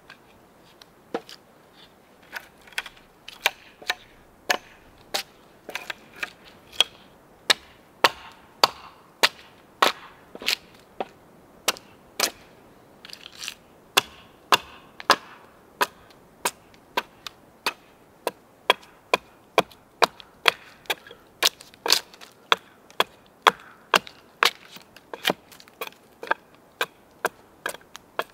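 Axe chopping into wood: a steady run of sharp strikes, about two a second.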